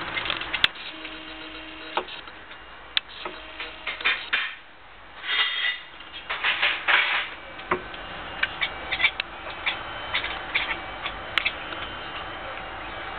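Domestic cat making its odd, clicking chatter at a fly it is stalking, in short bursts with single clicks between them; the loudest bursts come about halfway through.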